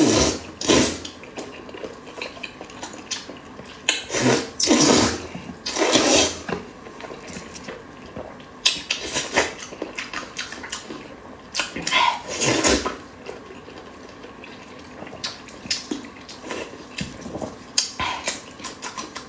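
Close-up eating sounds: noodles slurped in several wet sucks of about half a second to a second each, with chewing, lip smacking and small clicks between them.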